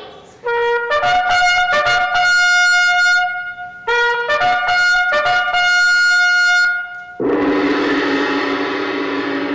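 Recorded sound-effect clips played back over a lecture hall's speakers: a short phrase of clear held notes, a lower note leaping to a higher held one, played twice. A long steady lower tone starts about seven seconds in.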